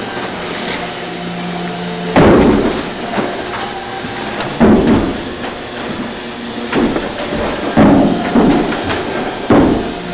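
Five loud, sharp thuds a second or two apart, from a kung fu performer's stamps and strikes during a Shaolin empty-hand form, each one ringing briefly in the hall.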